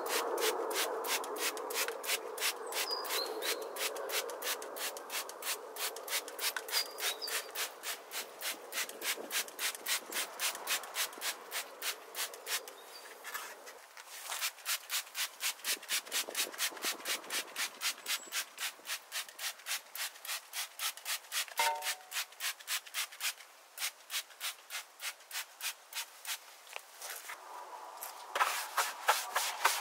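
A stiff brush scrubbing the plastic liner of a car's wheel arch in quick, even back-and-forth strokes, about three to four a second, pausing briefly near the middle, with a short squeak about two thirds through.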